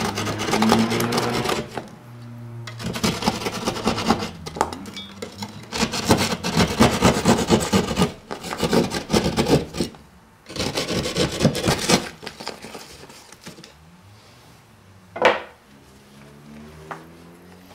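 Hand drywall saw cutting through drywall in quick back-and-forth strokes, in several spells with short pauses, stopping about twelve seconds in. A single sharp knock follows a few seconds later.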